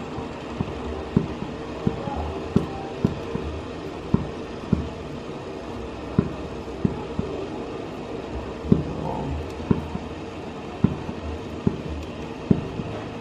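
Small beef meatballs dropped one by one from a spoon into a steel pot of hot water, each landing with a short, low plop, roughly one every second, over a steady low hum.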